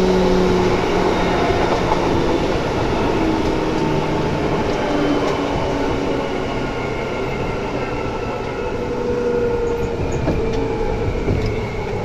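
Seibu 2000 series commuter train running: loud traction motor and gear whine over a steady rumble of wheels on rail. The whine lines shift slowly in pitch.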